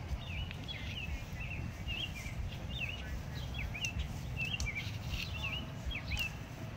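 A songbird singing a steady run of short, quick chirping notes that sweep up and down, over a low rumble.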